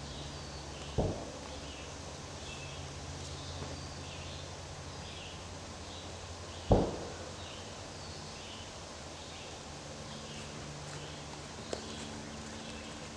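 Woodland ambience: short high chirps repeating about twice a second over a faint steady hum, broken by two sharp knocks. The louder knock comes about seven seconds in.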